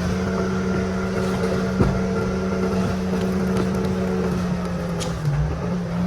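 Bulldozer's diesel engine running steadily while dragging logs, with a single sharp knock about two seconds in.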